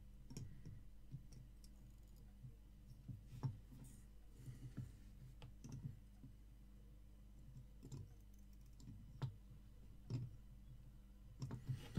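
Faint, irregular small clicks and taps of a circuit board and soldering-iron tip being handled on a bench while pins are soldered, over a low steady hum.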